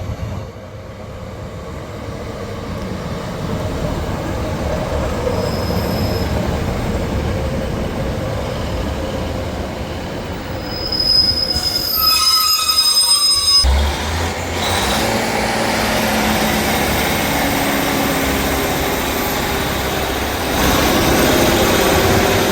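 A train running through the station, its noise growing over the first ten seconds, with a high-pitched wheel squeal about eleven seconds in, then continuing loudly.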